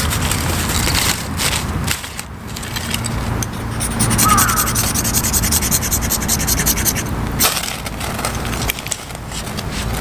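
Ferrocerium fire-starter rod scraped again and again over kindling to throw sparks: harsh scraping strokes, heaviest from about four to seven seconds in, with short pauses between runs.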